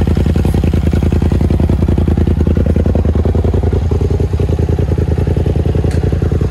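Polaris RZR Turbo's twin-cylinder turbocharged engine idling steadily, heard close to its rear exhaust as an even, rapid pulsing. Its belt cover is off, leaving the clutches exposed.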